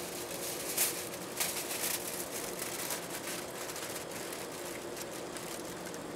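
Aluminium foil crinkling as it is wrapped and pressed into place by hand: a run of sharp crackles, loudest in the first couple of seconds and lighter after.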